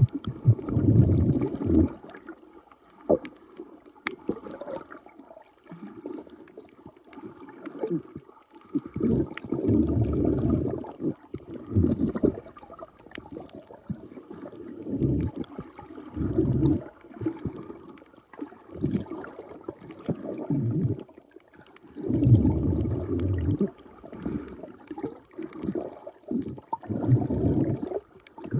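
Muffled underwater sound from a submerged phone: irregular surges of low gurgling and sloshing water, each a second or two long and coming every few seconds, with scattered faint clicks.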